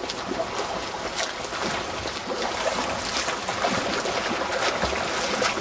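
Front-crawl swimmers splashing through open lake water close by: an irregular run of arm strokes and kicks hitting the surface.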